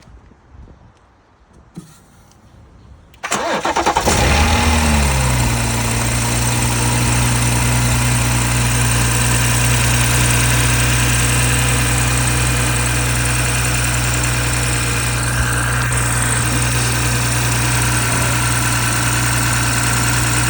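BMW 540i's B58 turbocharged inline-six, with a freshly fitted Dinan high-flow air filter, starting about three seconds in. The revs flare briefly, then settle to a steady idle.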